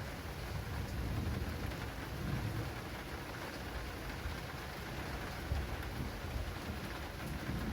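Heavy rain pattering steadily on an acrylic rain awning, with a low rumble of thunder underneath.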